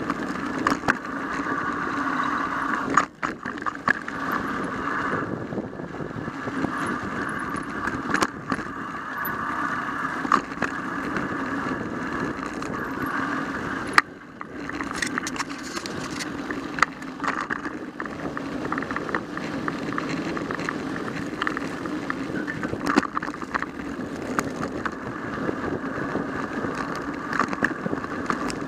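Mountain bike rolling down a dirt singletrack, picked up by a bike-mounted camera: a steady rumble of knobby tyres on dirt, with the frame and camera mount rattling and sharp knocks over bumps. The loudest knock comes about halfway through.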